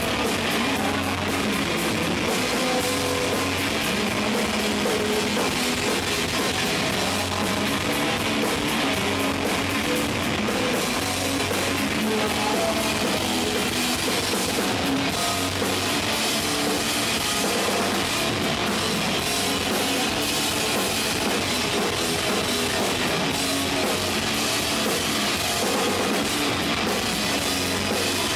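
Rock band playing live: a drum kit and guitars at a steady, loud level.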